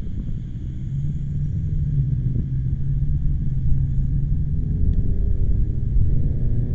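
Wind buffeting the microphone in a steady low rumble, with a vehicle's engine hum underneath that rises in pitch near the end.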